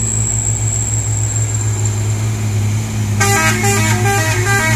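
A heavily loaded Fuso sugarcane truck's diesel engine labouring steadily uphill. About three seconds in, a musical multi-tone horn plays a quick stepping tune of short notes lasting about a second and a half.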